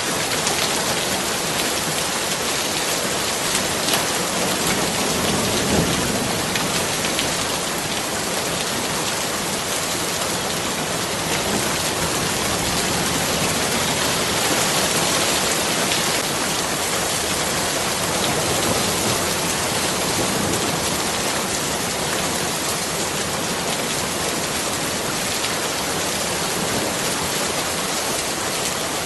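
Steady rain falling and pattering on surfaces, an even, continuous hiss with no letup.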